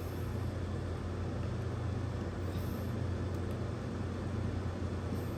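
A steady low hum with faint background noise, with a few faint light ticks in the middle.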